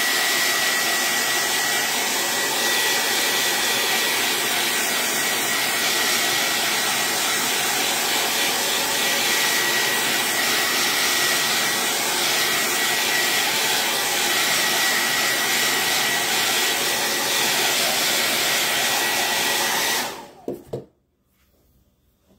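Handheld hot-air dryer blowing steadily, a thin high whine over the rush of air, drying chalk paste on a wooden cutting board. It is switched off near the end and runs down.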